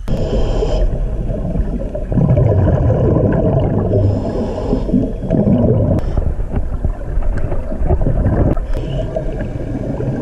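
Action camera going under the water's surface, then the muffled low rumble and gurgling of water moving around the camera's housing, swelling and easing in waves.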